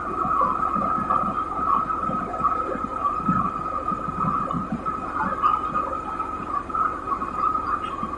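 Steady, rough droning hum of workshop machinery running, with an irregular low rumble beneath it.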